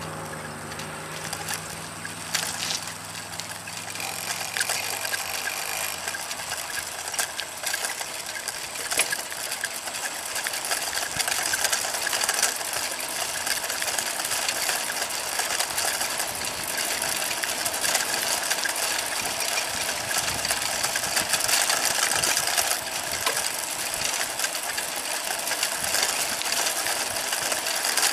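A bicycle rolling along an asphalt path: a steady rushing hiss of tyres and moving air, with fast fine clicking from the chain and freewheel. A passing motor vehicle's engine fades away during the first few seconds.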